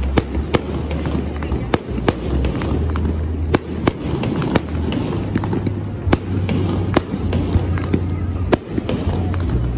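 Aerial fireworks display: bursting shells give a steady, irregular run of sharp bangs and pops, about one or two a second, over a continuous low rumble.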